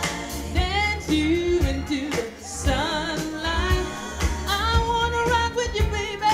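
A woman singing a pop song with vibrato into a handheld microphone, over backing music with a bass line and a beat.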